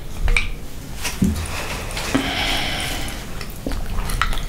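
Mussel shells clicking against each other and the glass bowl as hands pick them out of sauce, with wet handling noises between the clicks.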